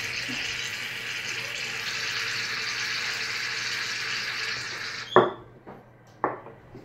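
A steady hiss that cuts off suddenly about five seconds in, followed by two sharp knocks.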